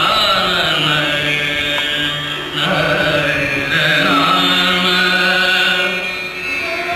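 Indian devotional chanting set to music: a voice sings long held notes, with short breaks between phrases.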